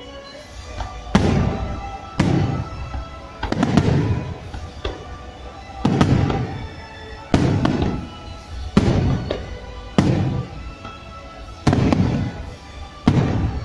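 Aerial firework shells bursting overhead, about ten sharp bangs roughly a second or two apart, each trailing off in a low rumbling echo. Music plays steadily underneath.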